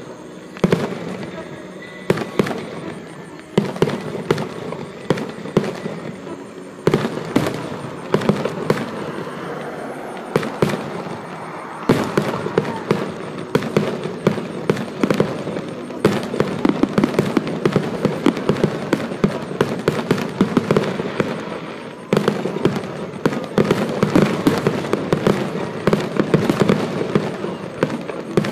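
Fireworks display: aerial shells going off in a near-continuous barrage of sharp bangs and crackling, getting denser and louder about twelve seconds in.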